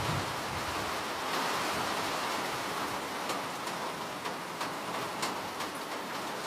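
Steady rain hiss with individual raindrops ticking sharply here and there, more often in the second half.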